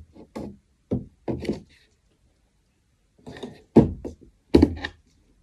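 Knocks and thuds of a flat-pack wooden shoe cabinet's panels being handled and shifted during assembly: a few light knocks, a short pause, then louder knocks near the end.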